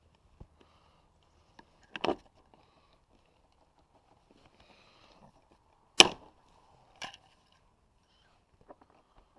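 A few sharp knocks of hand work on hardware: a double knock about two seconds in, the loudest single knock about six seconds in, and a lighter one a second later.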